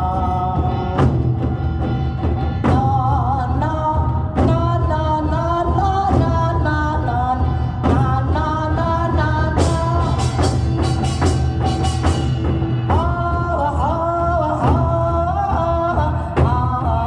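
Music from a Korean drum ensemble: barrel drums struck in a steady pattern over a backing track that carries a melody and a bass line.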